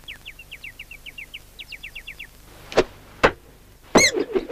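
Cartoon sound effects: a quick run of high chirps, then two sharp knocks about half a second apart, and a short high-pitched cry as the two bear puppets scuffle over the box.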